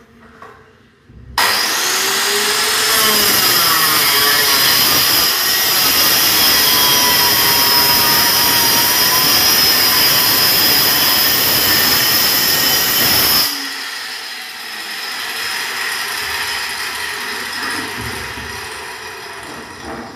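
Handheld electric circular saw cutting through a plywood sheet: it starts suddenly about a second and a half in and runs loud and steady for about twelve seconds, its pitch shifting slightly under the load of the cut. The loud noise then drops off sharply, leaving a fainter sound that fades away.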